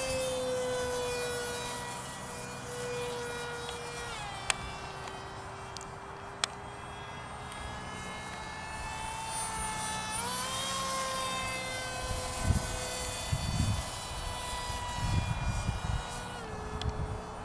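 Electric motor and propeller of an RC parkjet model of the Boeing ALCM cruise missile in flight, a steady whine. It drops in pitch about four seconds in as the throttle comes back, rises again about ten seconds in, and drops once more near the end.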